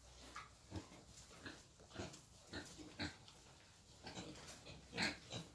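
Wild boar grunting: a string of short grunts, the loudest near the end.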